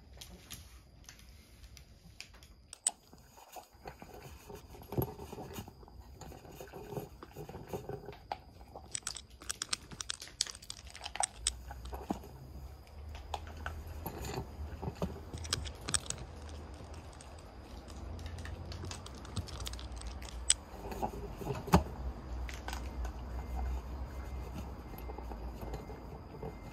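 Pomeranian eating dry kibble from a clear acrylic bowl: irregular sharp clicks of kibble and teeth knocking against the bowl, with crunching. A low rumble joins in about halfway through.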